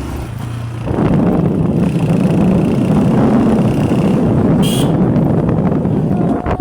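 Honda CG125 motorcycle's single-cylinder four-stroke engine running on the move. About a second in, a loud rush of wind on the microphone covers it as the bike gathers speed.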